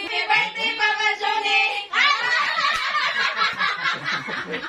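A small group of family voices talking together, then about two seconds in breaking abruptly into laughter with some hand clapping.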